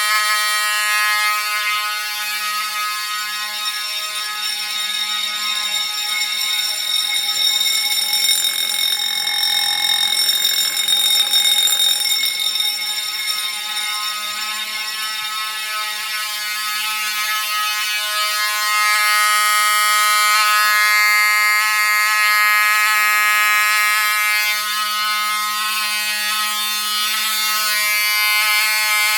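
Fire alarm signalling devices, a Wheelock 6-inch bell and an Ademco horn, sounding loudly and continuously in test alarm after a pull station has been pulled, with no break.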